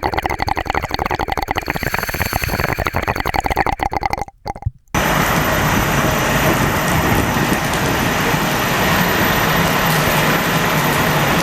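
Fire alarm bell ringing with rapid strokes for about four seconds, then cutting off abruptly. After a short gap, a steady, loud rushing noise.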